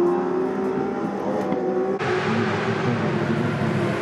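Racing motorcycle engine at high revs, its pitch rising steadily as the bike accelerates. About halfway through it cuts suddenly to a hissier, busier pit-garage noise.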